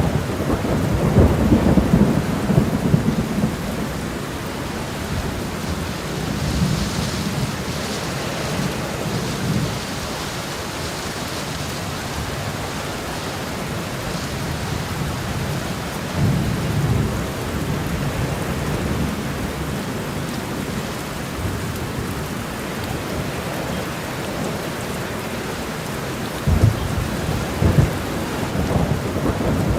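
Steady rain falling, with low rolls of thunder swelling near the start, about halfway through, and again near the end.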